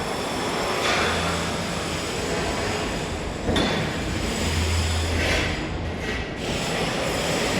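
Construction-site noise: a steady low machine hum under a wash of noise, with a single sharp knock about three and a half seconds in.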